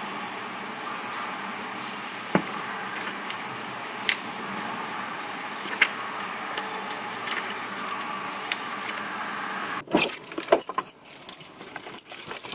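Steady background hiss with a few single light clicks, then near the end a burst of rattling and clicking as a bunch of keys jangles while someone climbs into a car.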